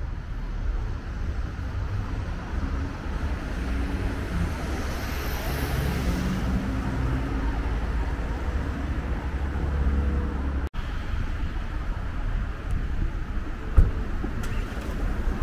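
Road traffic, with a vehicle passing midway, under steady wind rumble on the microphone. The sound drops out for an instant about two-thirds through, and there is a single sharp knock near the end.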